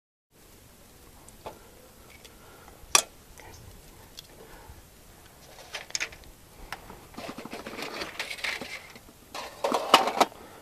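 Light clicks, taps and scrapes from handling a small titanium backpacking stove and its cookware while setting it up. There is one sharp click about three seconds in, a run of rasping clicks later on, and a cluster of louder knocks near the end.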